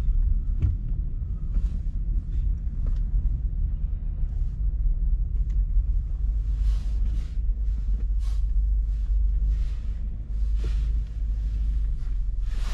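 Car interior while driving slowly: a steady low rumble of engine and road, with a few short hissing swells in the second half.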